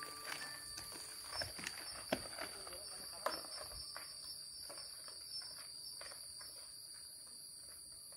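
Insects droning steadily at a high pitch, with scattered light clicks and knocks.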